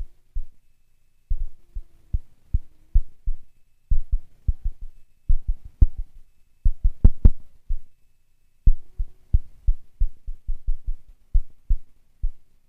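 Kilpatrick Audio Phenol analog synthesizer playing an irregular pattern of deep synthesized thumps, pausing briefly a few times, with short held tones that bend in pitch between the hits.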